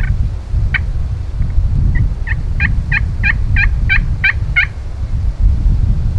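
Wild turkey yelping: a few single notes, then a run of about eight yelps at roughly three a second, each dropping in pitch. Heavy wind rumble on the microphone lies underneath.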